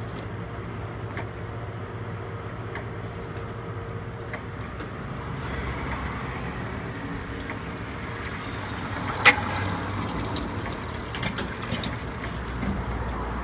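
Suction hose drawing wastewater and grease out of a grease trap chamber, over the steady drone of the vacuum unit. The rush of liquid grows louder about halfway through, and a single sharp knock sounds about nine seconds in.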